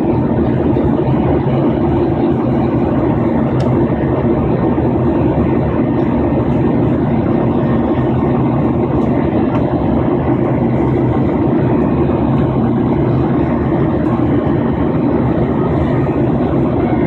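Steady jet engine and airflow noise heard inside an airliner's passenger cabin during the climb after takeoff.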